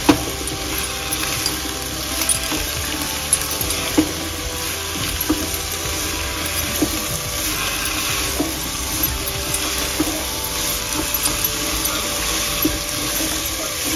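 Diced mixed vegetables sizzling in ghee in a pressure cooker pot as a silicone spatula stirs them. The spatula knocks lightly against the pot every second or two.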